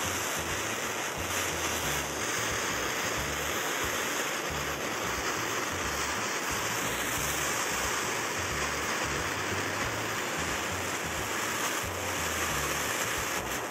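Handheld gas torch flame hissing steadily as it heats scrap silver in a crucible.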